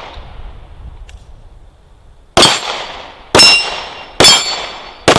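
Four gunshots from a magazine-fed semi-automatic firearm, fired about a second apart starting a little over two seconds in, each followed by a short metallic ring.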